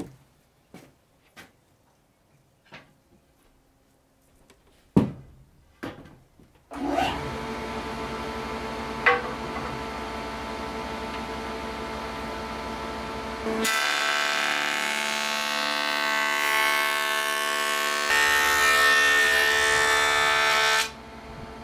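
A few light clicks and two sharp wooden knocks as boards are handled, then a jointer's motor starts about seven seconds in and runs with a steady hum. About halfway through, the louder, hissing sound of the cutterhead planing an ash board as it is pushed across the bed comes in for about seven seconds, then cuts back to the idling motor near the end.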